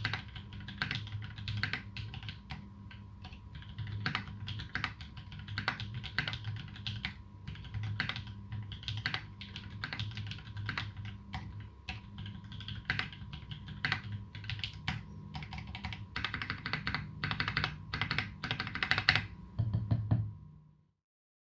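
Steady typing on a Duck Jetfire custom mechanical keyboard with lubed Holy Panda tactile switches (clipped sliders) and GMK keycaps: a fast, irregular run of keystrokes. The typing stops shortly before the end.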